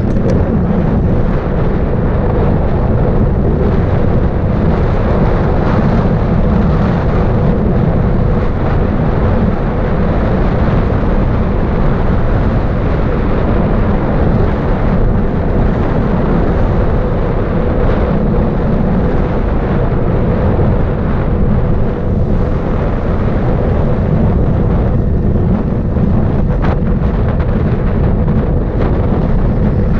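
Wind buffeting the microphone of a Garmin VIRB action camera on a road bike rolling along asphalt at around 30 km/h, with tyre noise mixed in: a loud, steady rumble.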